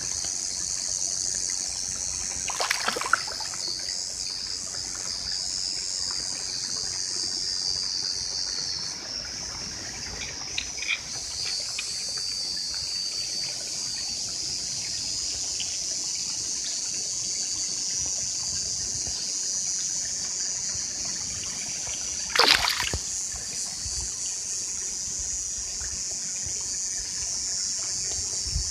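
Steady rush of a small forest stream's water, with two brief sharp sounds, one near the start and a louder one about three-quarters of the way through, and a few small clicks in between.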